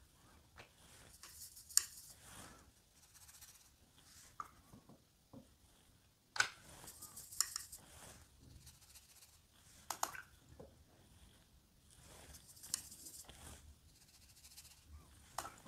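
Faint sounds of a watercolour brush at work: soft scrubbing and swishing as paint is mixed and laid down, with a handful of light, sharp taps and clicks spread irregularly through it.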